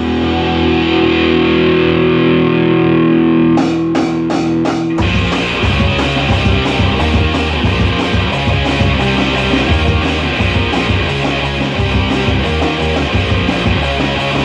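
Rock band rehearsing live in a small room: an electric guitar through an amplifier holds a chord, a few drum hits come in about four seconds in, and from about five seconds the full band with drums and bass plays on steadily.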